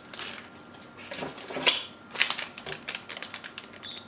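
Rustling and irregular clicking of a graphics card's packaging and accessories being handled and taken out of the box, with the loudest rustle a little under two seconds in.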